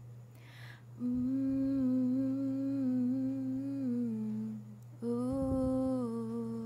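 A woman humming the melody with closed lips in two long held phrases, with a breath before the first and a short break before the second about five seconds in.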